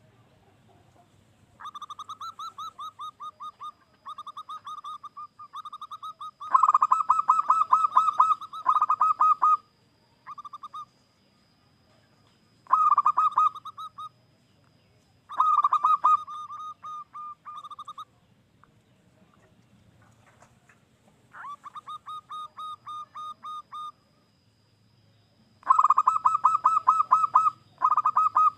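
Zebra dove cooing: repeated phrases of fast, rolling coos, each phrase a few seconds long with short pauses between, some phrases much louder than others.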